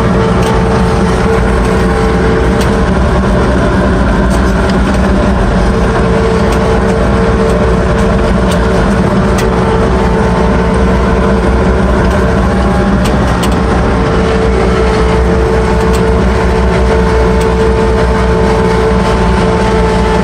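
Ransomes FrontLine 723D diesel mower running steadily under load while cutting grass, heard from the operator's cab. A constant low rumble carries a steady whine that fades out and comes back a couple of times.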